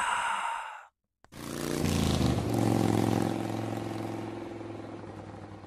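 Motorcycle engine comes in a little over a second in and runs steadily, then slowly fades away as it rides off.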